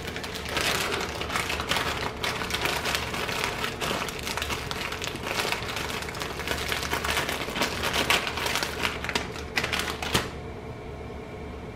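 Plastic zip-top bag of pepperoni slices being handled and rustled by hand: a dense run of crinkles and clicks that stops suddenly about ten seconds in.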